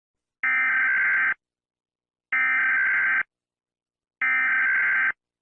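Emergency Alert System SAME header: three identical bursts of warbling digital data tones, each about a second long with a second of silence between them. These are the coded bursts that open an EAS alert.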